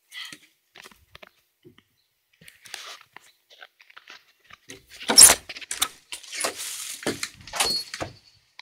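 Handling noise: rustling, clicks and rattles of things being picked up and moved, with a burst of loud knocks and rustling about five seconds in.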